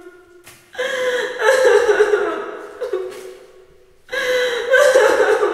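A young woman crying: a sharp gasping breath in, then two long, wavering sobbing cries, the second starting about four seconds in.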